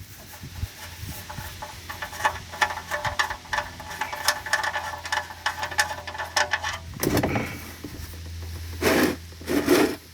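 Rapid metallic clicking of a ratchet wrench loosening the oil-pan drain plug, over a low steady hum, with a few louder noisy bursts near the end.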